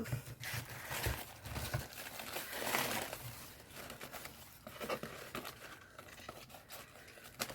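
Paper and packaging crinkling and rustling as they are handled, with some light tearing.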